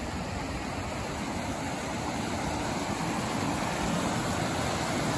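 Mountain stream rushing over boulders and small cascades: a steady rush of water that grows slightly louder.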